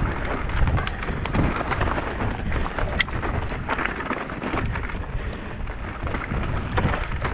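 Mountain bike riding down a rocky, gravelly singletrack: tyres on loose stones and the bike rattling with frequent small knocks, with one sharper click about three seconds in. Steady wind noise on the microphone runs underneath.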